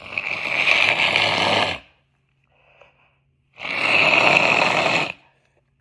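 Two long, wet nose blows with a harsh honking tone, each lasting about a second and a half, the second starting about three and a half seconds in: a nose stuffed up by allergies being cleared.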